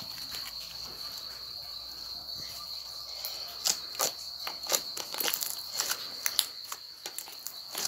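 Clear slime being squeezed and kneaded by hand, giving off short wet clicks and pops that come more often from about halfway through.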